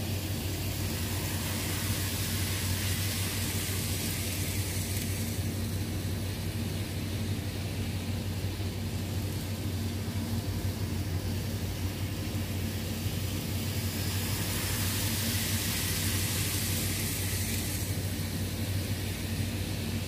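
N-scale model train running on the track: a steady low electrical hum, with a rushing noise that swells twice, about six and sixteen seconds in.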